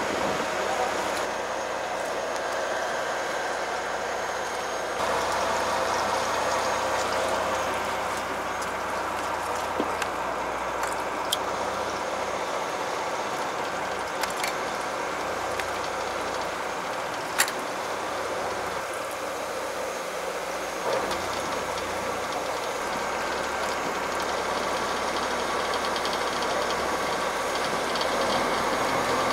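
Steady running hum of a fishing boat's engine, with a few small clicks from tackle being handled, one sharp click about halfway through.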